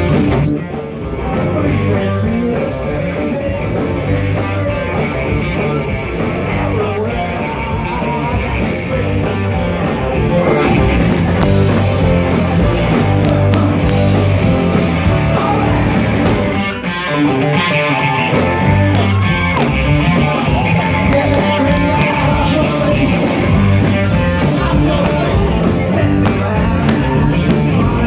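A rock band playing live, with electric guitar and keyboard, heard from close to the stage. The music drops out for a moment just past halfway, then carries on.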